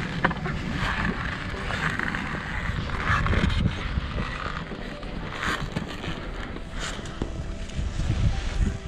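Wind buffeting the microphone outdoors, an uneven low rumble that rises and falls, with a few brief louder rustles.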